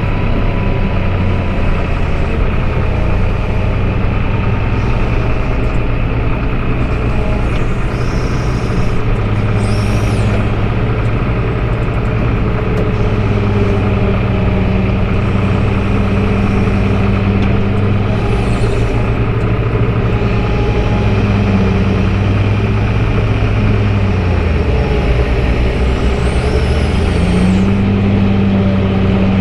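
Caterpillar diesel engine of a tub grinder running steadily under load while grinding hay bales, its pitch dipping briefly near the end and then recovering. Three brief hisses sound over it.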